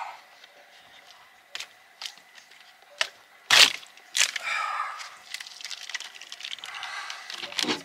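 Sharp knocks and a loud crack about three and a half seconds in, followed by a few seconds of rough scraping, as a boat's deck hatch is pried loose from its old sealant.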